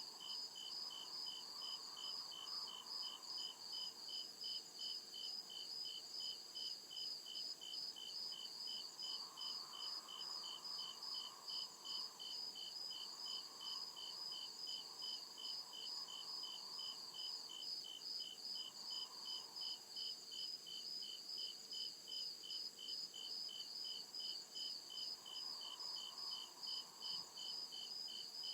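Crickets chirping at night in a steady, even rhythm, about two or three chirps a second, over a continuous high-pitched insect trill.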